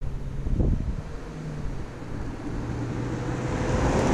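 2011 Infiniti G37S convertible's 3.7-litre V6 approaching and driving past, its engine note rising slightly in pitch and the engine and tyre noise growing louder as it nears.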